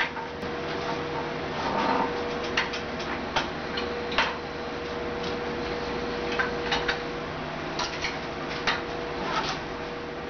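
Scattered sharp metal clicks and clanks as a manual sheet metal brake is worked and a strip of 16-gauge mild steel is bent in it and lifted out, over a steady faint hum.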